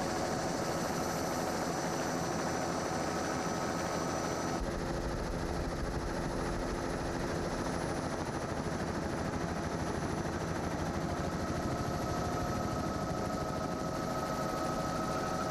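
Steady, rapidly pulsing engine noise, with a sudden change in tone about four and a half seconds in.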